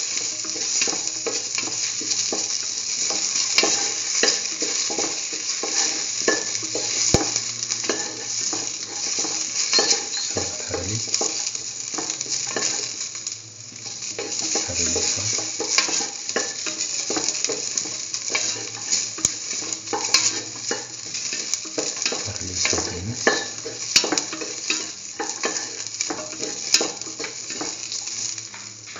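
Oil sizzling in a pan as chopped onion, shallots and tomato are sautéed, with a stirring utensil scraping and clicking against the pan at irregular intervals.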